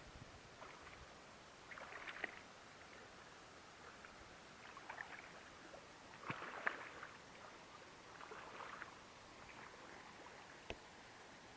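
Hooked wels catfish splashing and thrashing at the water surface, in a few short splashes, the loudest about six and a half seconds in. A single sharp click near the end.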